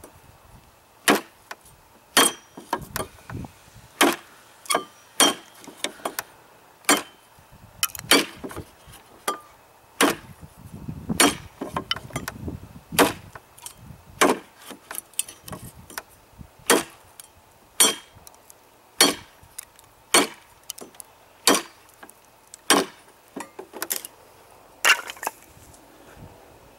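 Cold Steel Bushman knife chopping into a 2x2 wooden board: sharp wooden strikes at a steady pace of about one a second.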